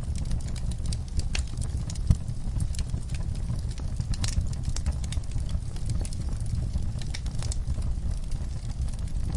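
Fire crackling in a fireplace: irregular sharp pops and snaps over a low, steady rumble, with one louder pop about two seconds in.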